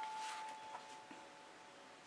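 A single ringing chime tone, struck just before, fading away over the first second, then faint room sound.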